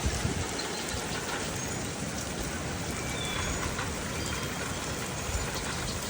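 Steady rain falling, an even hiss with scattered low thuds.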